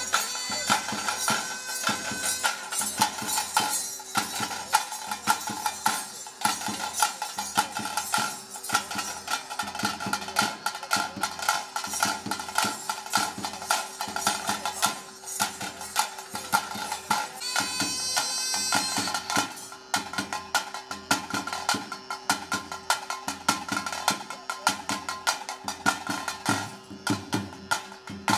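Traditional Tulu ritual music: thaase drums beating a fast, steady rhythm, with a nagaswara reed pipe playing a melody over a steady held drone note.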